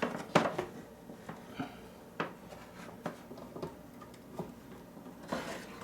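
Scattered light clicks and knocks of hands handling the microwave's power cord and plug while plugging it in, a few close together at first, then sparser, with a short rustle near the end.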